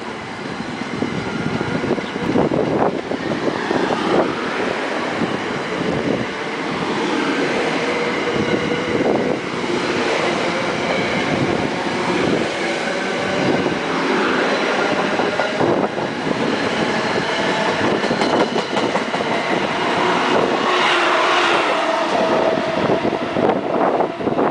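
Electric commuter train's coaches passing close by at speed: a steady, loud rush of steel wheels on rail, with faint tones that drift up and down.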